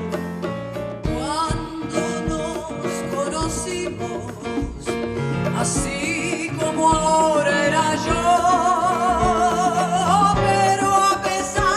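A woman singing into a microphone over instrumental accompaniment, holding long notes with wide vibrato that grow louder in the second half.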